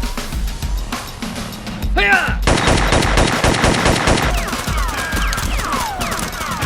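Rapid burst of machine-gun fire, a sound effect lasting nearly two seconds and starting about two and a half seconds in. It plays over background music with a steady low beat, and a few short falling whistles follow it.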